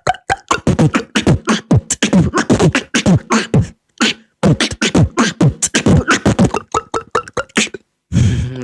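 Human beatboxing: a fast rhythm of vocal kick drums with falling bass and sharp snare-like hits, worked into a water-drop sound effect made with the mouth. It pauses briefly about halfway and stops shortly before the end.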